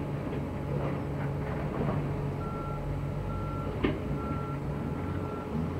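Diesel engine of heavy demolition machinery running steadily, with a backup alarm starting to beep about two seconds in, one tone repeated at a steady pace. A single sharp knock comes near the middle.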